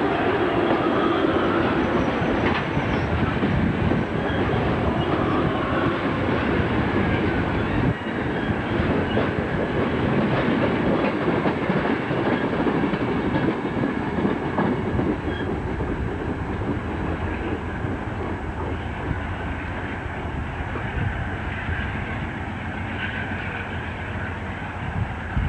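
Amtrak Superliner bilevel passenger cars of a departing train rolling past close by, a steady clatter of steel wheels on the rails that grows gradually quieter over the second half.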